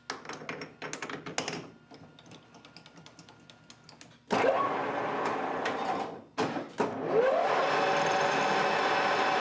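Metal lathe: metallic clicks and clatter as the three-jaw chuck is tightened on a brass piston. About four seconds in the lathe motor starts and the spindle spins up with a rising whine, cuts out briefly, spins up again and then runs steadily.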